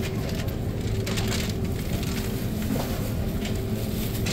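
Supermarket ambience: a steady low hum with a few crinkles of a thin plastic produce bag being handled.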